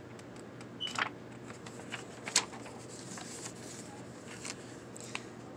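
Pages of a paper instruction manual being handled and turned: a few scattered short paper rustles and clicks, the sharpest about two and a half seconds in, over a steady low hum.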